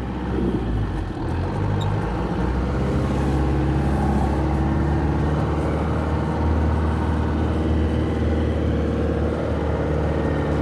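A 4x4's engine running steadily as it drives along a dirt bush track, with tyre and road noise, heard from inside the cab.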